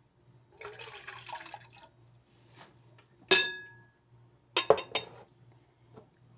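A cup of water poured into a steel pot of oil, a splashing hiss of about a second. About halfway, one sharp ringing clink of the glass cup against the pot, then a few quicker knocks near the end.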